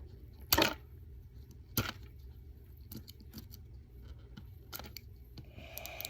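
Small plastic packaging being handled and opened by hand, making a few sharp clicks and snaps, the loudest about half a second in and another just under two seconds in, with lighter clicks after.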